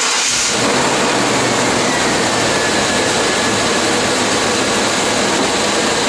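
1995 Chevy Tahoe's 5.7-litre (350) small-block V8 running steadily just after starting, a loud even roar with a faint whine that slowly drops in pitch.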